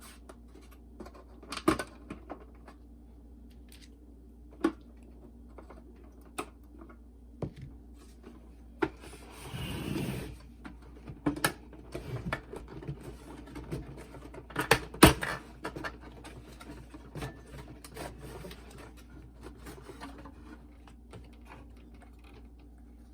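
Scattered clicks, taps and rubbing as boombox parts are handled and fitted back in place. There is a short scraping rustle about ten seconds in, and the sharpest click comes about fifteen seconds in.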